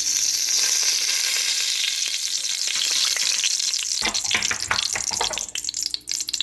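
Cooking oil sizzling loudly as food hits it in a hot pot, the hiss easing off, then a spoon scraping and clinking against the pot from about four seconds in as it is stirred.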